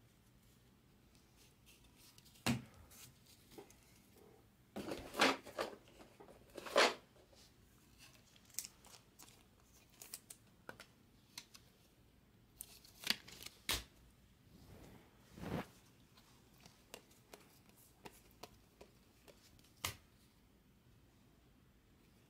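Baseball trading cards being handled: a stack thumbed through and cards slid off it, with a clear plastic card holder handled partway through. Scattered soft rustles and clicks, the loudest cluster about five to seven seconds in.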